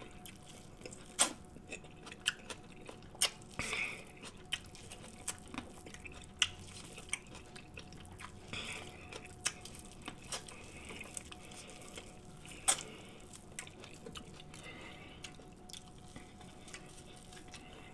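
Close-up eating sounds: a man biting into corn on the cob and chewing, with wet mouth smacks and scattered sharp clicks.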